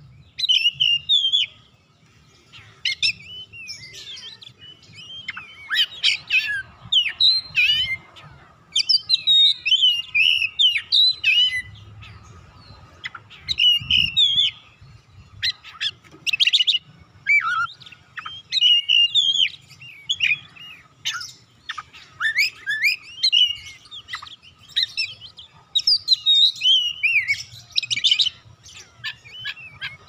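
Oriental magpie-robin singing a long, varied song of rapid whistles, trills and chirps, delivered in bursts with short pauses between phrases.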